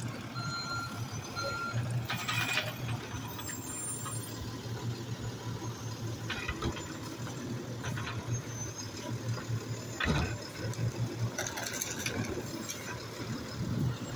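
Automated side-loader garbage truck running steadily. Its reversing beeper sounds a few more times in the first couple of seconds and then stops, followed by several short hisses and clanks.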